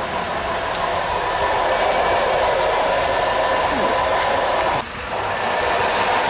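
Steady whirring noise from a Nissan Qashqai's Jatco JF015 CVT with the engine idling in park or neutral, briefly dipping about five seconds in. The noise goes away in drive or reverse, which points to a fault in the transmission.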